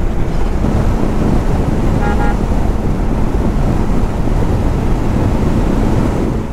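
Bajaj Dominar 400's single-cylinder engine running at steady highway cruising speed under heavy wind rumble on the microphone. A short vehicle horn toot about two seconds in.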